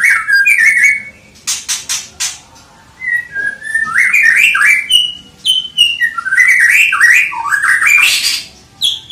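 White-rumped shama (murai batu) singing loudly: varied phrases of whistled, gliding notes, broken by short pauses, with a quick run of sharp clicks about one and a half seconds in and a harsher, rasping note near the end.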